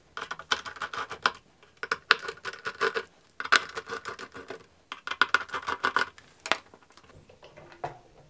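Small screwdriver backing out the screws of a 3D-printed plastic lid: four spells of rapid fine clicking and scraping, each about a second long, then a few quieter knocks as the lid is handled.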